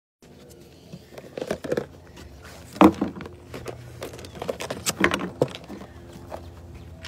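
A dog's paws and claws stepping and scraping on a hollow plastic platform close to the microphone: a string of irregular knocks and scuffs, the loudest knock about three seconds in, over a steady low hum.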